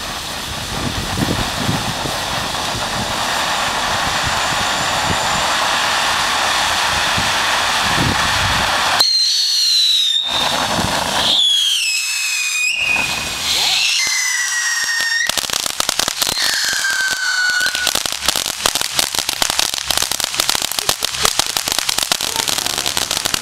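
Ground fountain firework spraying sparks with a steady hiss. About nine seconds in come four or five whistles, each falling in pitch. Dense crackling takes over for the last third.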